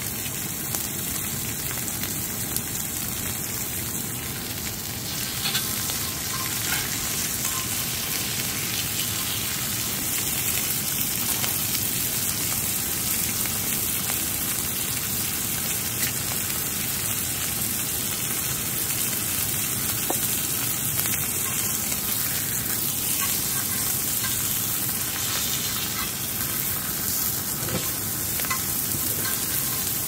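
Beef steaks sizzling on a round black griddle plate: a steady frying hiss with small spattering pops, getting a little louder about five seconds in.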